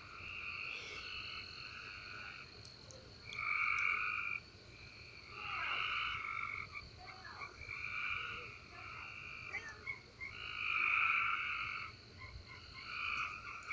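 Frogs calling at night: a chorus of trilled calls, each about a second long, repeating every couple of seconds.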